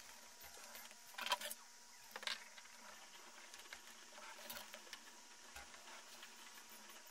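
Quiet handling of drawing tools on a sketchbook page: a metal compass, then a plastic set square being laid down and a mechanical pencil drawing along it. There are two sharper clicks about one and two seconds in, then lighter ticks, over a faint steady hum.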